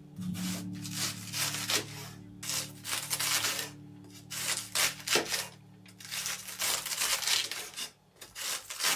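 A large cleaver-style knife slicing through a half head of white cabbage on a wooden board: a run of crisp, rasping shredding strokes, each lasting most of a second with short gaps between them, over faint background music.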